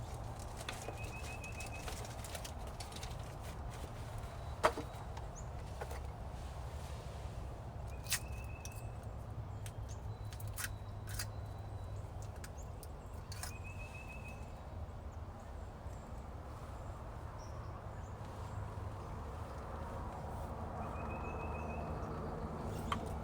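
A bird calling a short, rapid trill four times, several seconds apart, over a steady low background rumble, with a few sharp clicks; the loudest click comes about five seconds in.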